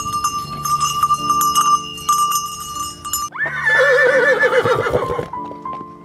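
Cowbell clanking a few times over steady background music. About three seconds in, a horse whinnies loudly with a quavering pitch for about two seconds.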